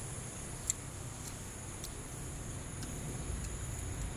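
Outdoor background: a steady low rumble under a steady high-pitched insect drone, with a few faint clicks.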